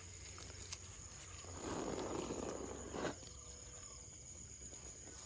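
A wet cast net is set down on a sack on the grass: a rustle of about a second and a half, ending in a soft thump about three seconds in. A steady high insect drone runs underneath.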